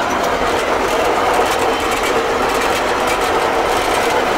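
Fortschritt E303 self-propelled mower heard from its cab with the 5-metre header just engaged: engine running steadily together with a rapid, even clatter from the header's cutter bar and reel.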